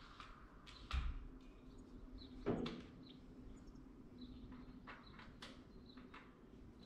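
Two knocks about a second and a half apart from handling something in a tractor cab, the second heavier with a short ring, then a few light clicks over a low steady hum.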